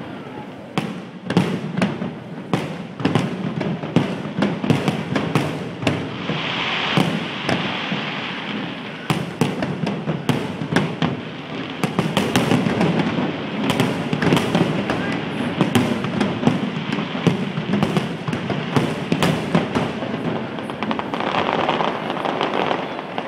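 Aerial fireworks bursting in a dense, rapid barrage, sharp bangs overlapping over a continuous rumble, tapering off just before the end.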